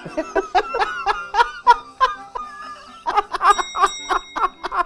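Man laughing hard in rapid 'hehehahaha' bursts, several a second, getting louder in the second half.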